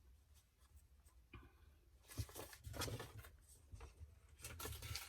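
Faint handling sounds: soft rustling and a few light taps and clicks as things are moved about on a table, louder from about two seconds in.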